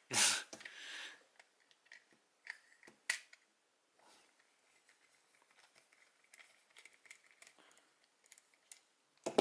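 Small plastic toy parts being handled and shifted by hand. There is a clatter at the start, then scattered light clicks and rustles, and a sharper click just before the end.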